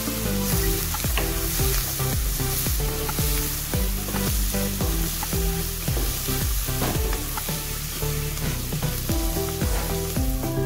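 Diced red onions sizzling in hot oil in a coated karahi, with a wooden spoon scraping and turning them in repeated strokes. Background music with held notes plays underneath.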